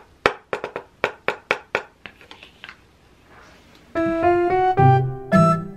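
A spoon scraping and clinking around an empty metal bowl, about four quick strokes a second, stopping near the three-second mark. About four seconds in, a piano melody begins.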